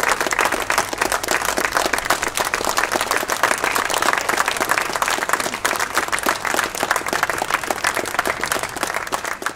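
Audience applauding steadily, a dense sustained clapping that thins slightly near the end.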